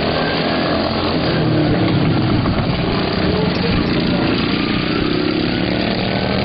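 Several racing riding lawn mowers' small engines running hard together, their pitch rising and falling.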